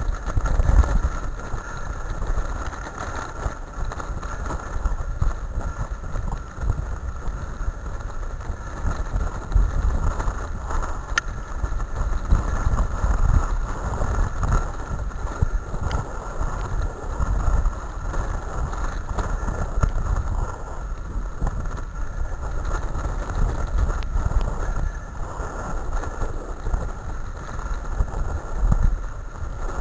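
Dryland dog rig rolling fast over a dirt forest track behind a sled-dog team: a continuous, uneven low rumble with small jolts, and wind buffeting the microphone.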